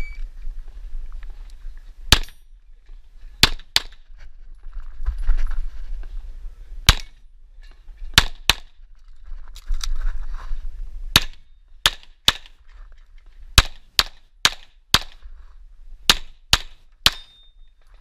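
A shot timer's beep at the very start, then a Tanfoglio Stock II 9x19 pistol fired about sixteen times at a rapid competition pace, in single shots and quick pairs separated by short pauses.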